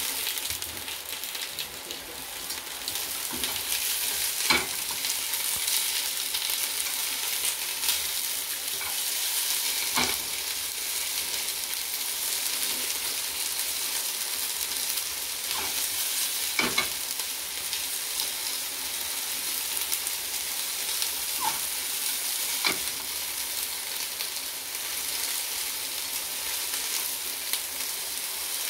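Food sizzling steadily in hot oil in a frying pan, with a sharp click every several seconds, the loudest about four and a half seconds in.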